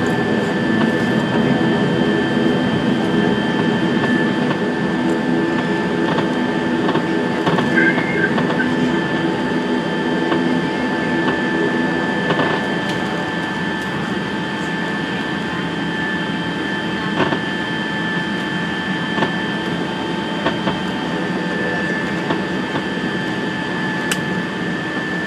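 Dornier 328 turboprop engines heard inside the cabin while the aircraft taxis: a steady whine with a high tone over a rushing noise. The lower hum eases off about halfway through.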